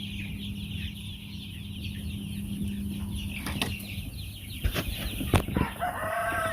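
A crowd of young chicks peeping in a dense, continuous chorus over a steady low hum, with a few sharp knocks in the second half. Near the end a longer, held call starts.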